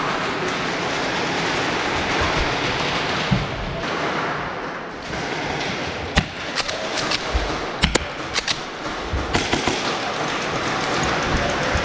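Airsoft guns firing: a string of irregular sharp snaps starting about halfway through, over a steady rushing background noise.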